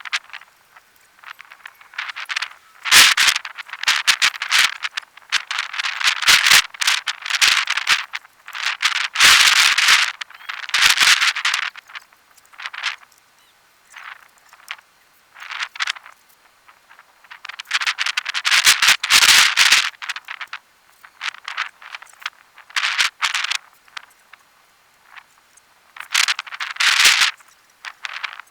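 Irregular bursts of rattling and scraping noise, each lasting up to a couple of seconds, with a few sharp knocks in between.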